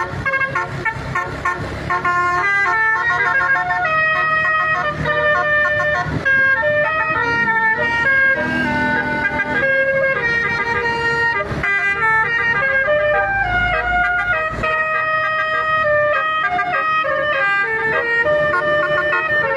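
Basuri multi-tone air horn playing a sad melody of held notes that step from one pitch to the next, with a low steady hum underneath.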